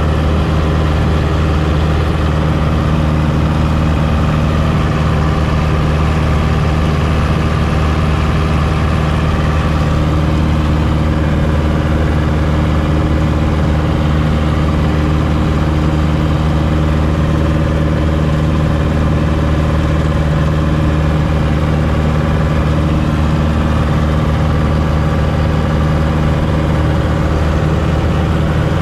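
Light airplane's piston engine and propeller running steadily in flight, heard from inside the cabin.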